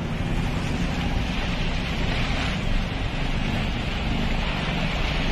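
Floodwater rushing and splashing along the side of a car as it drives through a flooded street: a steady rushing hiss over a low rumble.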